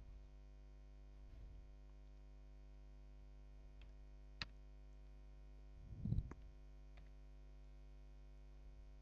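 Faint computer keyboard keystrokes, a few separate clicks, over a steady electrical mains hum, with a louder low thump about six seconds in.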